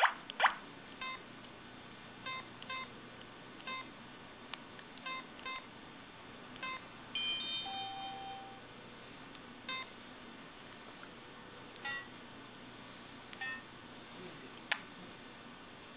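IM-6100 mobile phone's button and interface sound effects: short electronic beeps at irregular intervals as keys are pressed, with a brief multi-note chime about halfway through.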